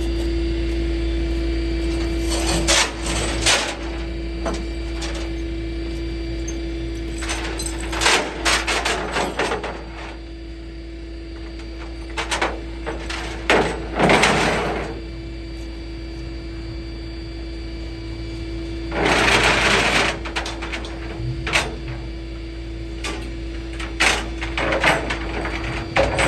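Rollback tow truck's engine running with a steady low hum, over which come scattered metal clanks and rattles and a brief rushing scrape in the second half, as the load on the tilted bed is handled and secured.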